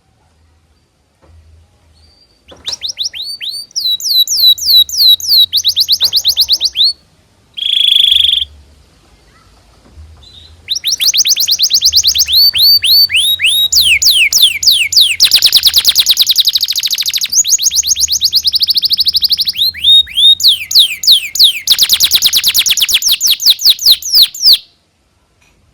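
Domestic canary singing a long song of rapid, evenly repeated downward-sweeping chirps and trills. A short phrase comes first, then a single held note, then a long unbroken run of rolls that stops shortly before the end.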